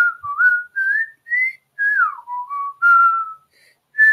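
A person whistling a tune: short notes climbing step by step, a long downward slide about two seconds in, then a longer held note.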